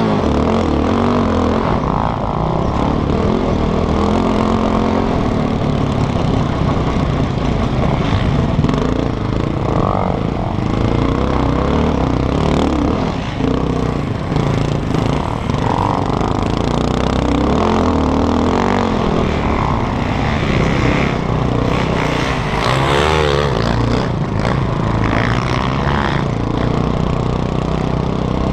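Sport quad's engine heard close up from onboard, running hard under load on a dirt track, its revs rising and falling as the rider accelerates and backs off.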